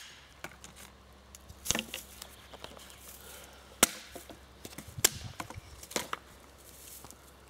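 Dead wood being chopped with a hand tool: four sharp knocks, roughly a second apart, with fainter taps between.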